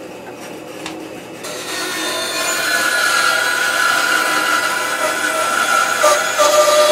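Homemade wooden bandsaw running, its blade cutting through maple plywood. The cut starts about a second and a half in and gets louder, a steady sawing noise with a tone running through it.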